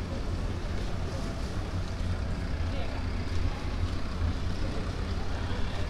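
Steady low rumble of an engine running, with people talking in the background.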